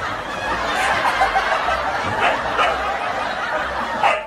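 Many people laughing and snickering together, a continuous mass of chuckles.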